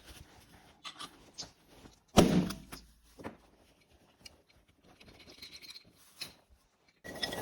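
Popcorn machine with scattered sharp pops and clicks, and one much louder thump about two seconds in that has a short low rumble after it. A dense clattering starts right at the end.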